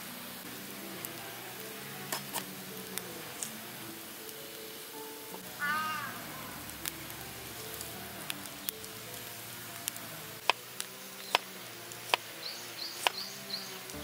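Garlic being peeled by hand with papery crackles, then a knife cutting garlic cloves on a wooden cutting board in sharp taps from about ten seconds in, over soft background music. A bird calls briefly about six seconds in and chirps several times near the end.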